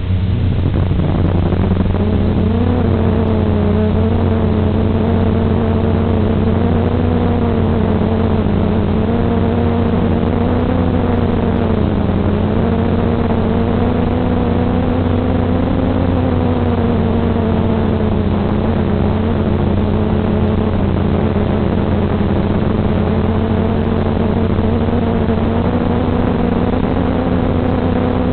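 Electric motors and propellers of an FPV drone in flight, picked up by its onboard microphone: a steady whine that comes up right at the start as it lifts off, then holds pitch with small wobbles, over a constant hum and hiss from the video transmitter's audio.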